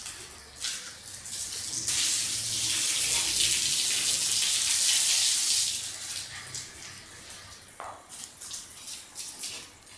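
Water from a garden hose splashing onto a tiled floor. A loud, steady hiss starts about two seconds in and lasts about four seconds, then gives way to short, irregular splashes as a small dog snaps at the falling stream.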